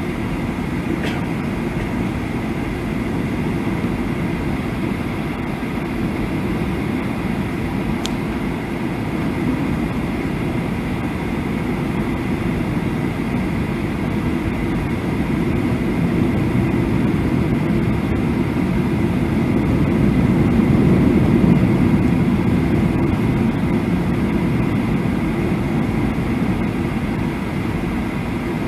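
Steady cabin noise inside a Boeing 737 airliner: a low rumble of the jet engines and the air rushing past the fuselage. It swells louder about twenty seconds in, then eases.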